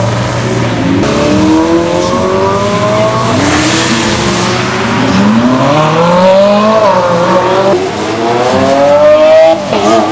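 Supercars accelerating hard away one after another, including a Ferrari 458 Spider and a Lamborghini Aventador roadster. The engine pitch climbs, drops back at each upshift and climbs again several times. There is a hiss of tyres on wet pavement.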